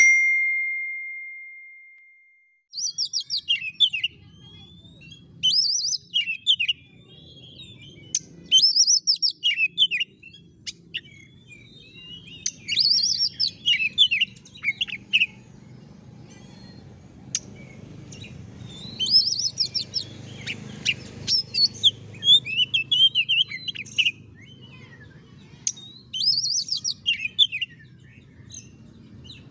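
A single electronic chime fades out over the first two seconds or so. Then an oriental magpie-robin sings loudly in the cage, phrase after phrase of rapid whistled and trilled notes every second or two.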